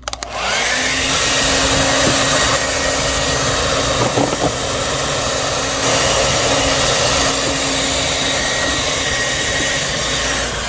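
Handheld hair dryer switched on and blowing steadily, its motor whining up to speed in the first half second.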